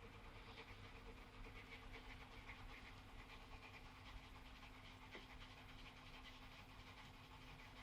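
Faint Mitsubishi 6G72 V6 idling with a fast, even ticking over a steady low hum: the lifter tick that the owner blames on the hydraulic lash adjusters.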